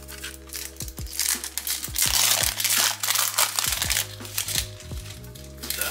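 The wrapper of a Skybox Metal Universe hockey card pack crinkling and tearing as it is ripped open by hand, loudest for a couple of seconds in the middle, over background music.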